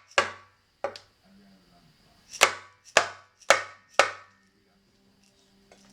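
A mallet tapping the Shimano XT right-hand crank arm and spindle home through the bottom bracket. There are sharp knocks with a brief ring, two near the start, then after a pause four more about half a second apart.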